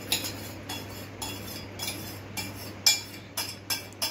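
Steel tumbler clinking against metal as yogurt paste is poured and tipped out of it into a pan of curry: a string of irregular sharp metallic clinks, the loudest a little under three seconds in.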